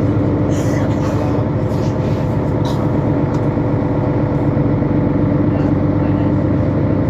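Mercedes-Benz Citaro C2 city bus's Euro 5 diesel engine and drivetrain running at a steady pace while driving, with a constant drone and a steady whine. A few light rattles come in the first three seconds.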